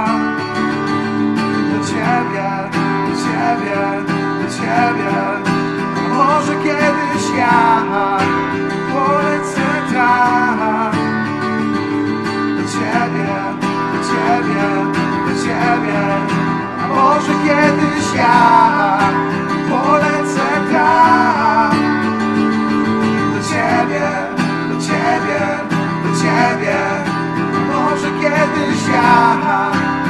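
Acoustic guitar strummed steadily as song accompaniment, with a wavering melody line running over the chords.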